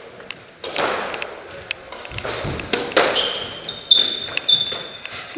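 A squash rally: sharp cracks of the racket striking the ball and of the ball hitting the walls, several in a row, the loudest about three and four seconds in. Shoes squeak sharply on the wooden court floor in the second half.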